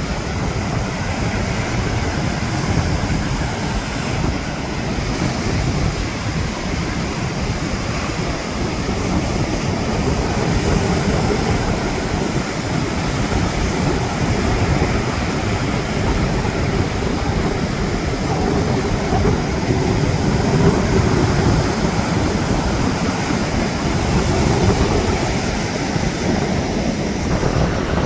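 Ocean surf washing steadily, with wind rumbling and buffeting on the microphone.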